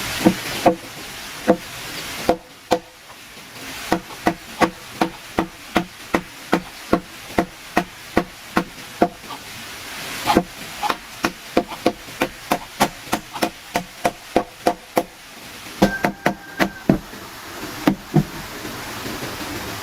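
A tool striking wood over and over: a few scattered blows, then a steady run of sharp strikes about two or three a second, easing off near the end.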